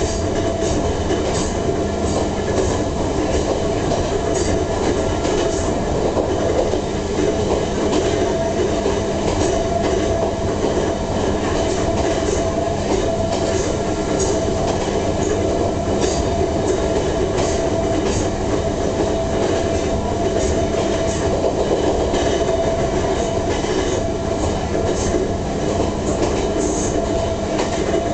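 Inside an Ohmi Railway MoHa 220-series electric car running at a steady speed. Its nose-suspended (tsurikake) traction motors and gears give a steady whine over the running noise, with scattered clicks and rattles.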